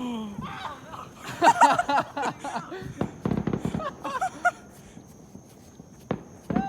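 Excited shouting and yelling over sharp pops from flash strobe fireworks, with two more pops near the end.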